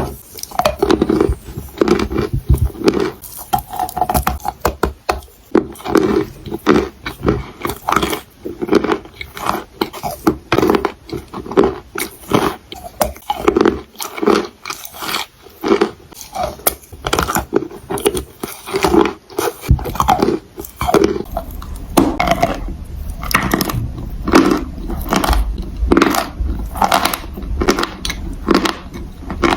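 Close-up chewing and biting of crunchy food: a fast, uneven run of loud crackling crunches, several a second, with a low rumble beneath in the later part.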